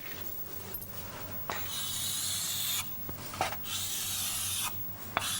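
Pen strokes on a writing surface while drawing a diagram: two long scratchy rubbing strokes of about a second each, with a few short taps in between.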